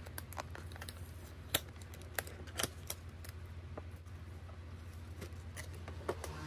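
Cardboard box being opened by hand: sticky tape peeled off the flap and the card flap pulled open, a string of sharp crackles and clicks, the loudest about one and a half and two and a half seconds in, over a low steady hum.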